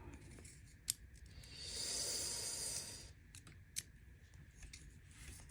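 Folding-knife parts being handled and fitted together: two sharp small clicks, about a second in and near four seconds, with a soft rasping scrape lasting about a second and a half between them.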